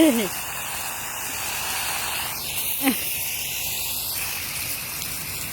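Water spray from a hose hissing steadily as it hits the ground. About three seconds in there is one brief falling squeal.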